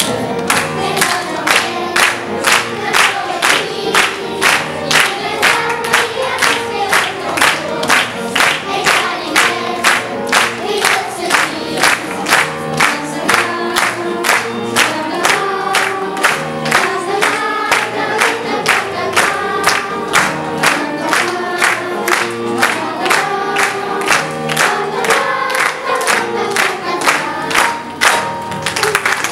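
Children's choir singing a song with instrumental accompaniment over a sharp, steady beat of about two strokes a second.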